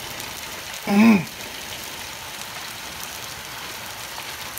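Steady hiss of pea-sized hail falling in a heavy hailstorm, with a short exclamation from a man's voice about a second in.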